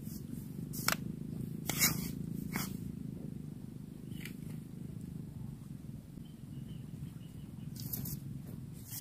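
Steady low rumble of wind buffeting the microphone in an open field, with a handful of short sharp clicks scattered through it.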